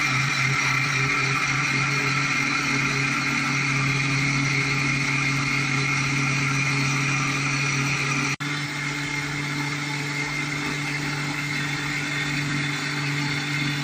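Electric mixer grinder running steadily at speed, grinding coconut chutney ingredients with water in its stainless steel jar: a continuous motor hum and whir. The sound drops out for a moment about eight seconds in, then runs on slightly quieter.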